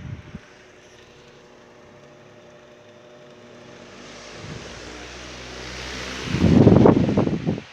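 Arge Stylo 50 cm pedestal fan running with a steady motor hum. Its airflow grows louder over a few seconds and buffets the microphone loudly for about a second near the end, then falls away suddenly.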